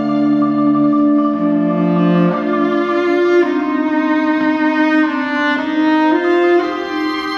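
Chamber quartet of flute, violin, cello and clarinet playing a contemporary piece in long held notes. The lowest cello notes stop after about two and a half seconds and the parts shift to higher notes.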